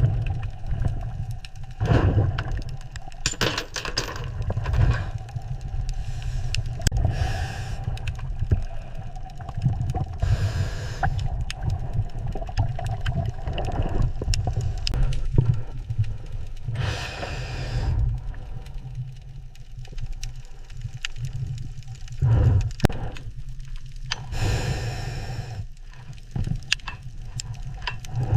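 Underwater work ambience: a steady low rumble, with a one-second burst of hiss every few seconds and scattered sharp knocks and scrapes.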